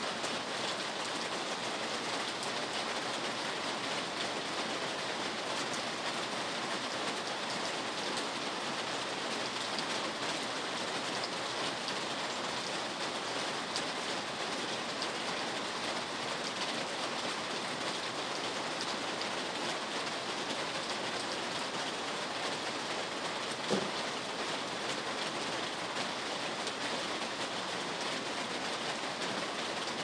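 Steady rain falling, an even rushing hiss with no let-up. One short low thump sounds about two-thirds of the way through.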